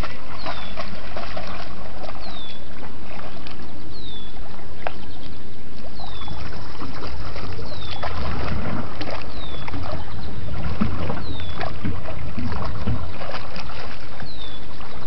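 A dog splashing as it wades and lunges in shallow water, the splashes busiest in the second half. A bird repeats a short, high, falling whistle about every two seconds.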